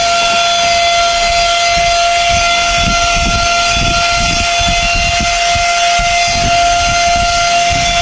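Cordless handheld car vacuum cleaner running with a steady high whine over rushing air. Its nozzle works across the dashboard, adding irregular low bumps and scrapes.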